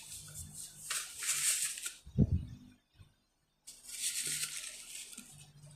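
Crinkly rustling of a starch packet as powder is measured out, in two stretches, with a dull knock between them.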